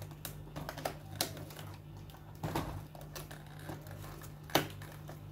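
Irregular clicks, taps and crinkles of a small plastic toy package being handled and pulled open, with a louder knock about four and a half seconds in, over a steady low hum.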